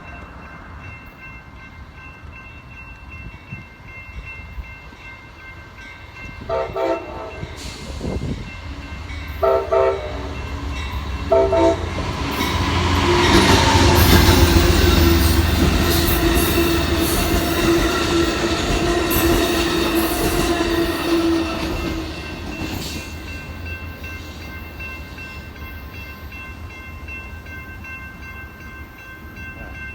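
Amtrak passenger train's locomotive air horn sounding three short blasts about a second or two apart, then the train passing close by, loudest about halfway through, before fading away.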